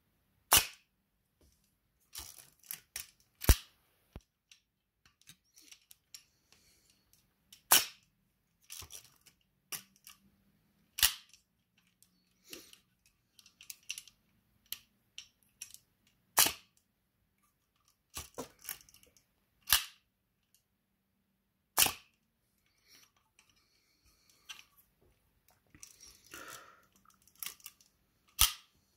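Ihagee Exakta SLR's shutter and mirror firing, a sharp loud click about eight times a few seconds apart, with quieter clicks and rattles of the wind lever and handling in between.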